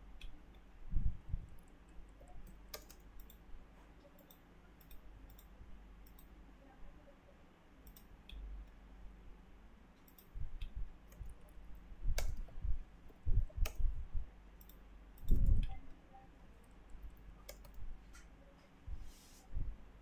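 Computer mouse clicking: irregular single sharp clicks, with several dull low thumps. The loudest thump comes about three quarters of the way in.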